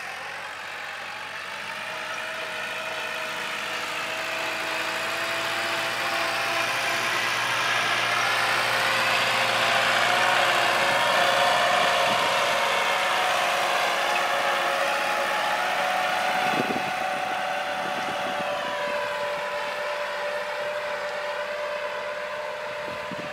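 Kubota L4708 tractor's diesel engine running steadily while it pulls a disc harrow through tilled soil, growing louder as it comes close about halfway through, then fading as it moves away.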